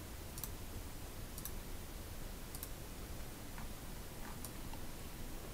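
Faint computer mouse clicks, about five spaced roughly a second apart, over a low steady room hum.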